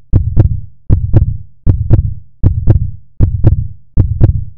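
Heartbeat sound effect: paired low lub-dub thumps repeating steadily, about six beats at a little under a beat per second.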